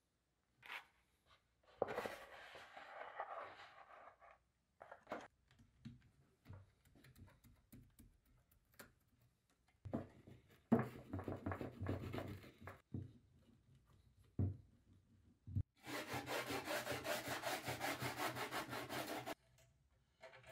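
Grip tape being worked onto a wooden longboard deck: a skateboard wheel rolled over the tape, and near the end a scrap of grip tape rubbed fast along the deck's edge, about eight strokes a second for some three seconds, sanding the edge smooth.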